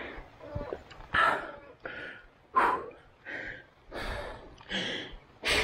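A person panting hard, about eight short noisy breaths in the space of a few seconds, some catching in a gasp: laboured breathing from the effort of pedalling a bicycle uphill.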